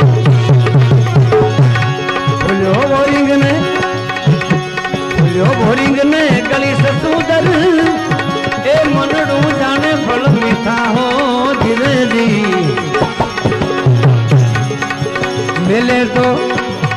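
Instrumental interlude of a Gujarati devotional bhajan: tabla drumming under a gliding melodic line, with heavy bass drum strokes near the start and again near the end.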